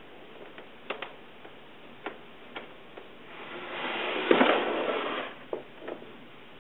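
Large paper sheets being handled against a whiteboard: a few light taps and knocks, then a rustle of paper that swells about halfway through and dies away after a second or two.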